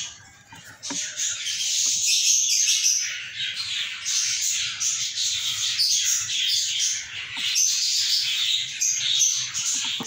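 A flock of lovebirds chattering: many high, overlapping chirps and squawks at once, quieter for about the first second.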